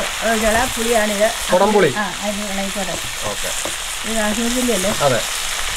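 Hot oil sizzling and crackling in a cooking pan, with a voice sounding over it in several short stretches.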